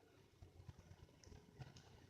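Near silence: a faint low rumble with a few soft clicks.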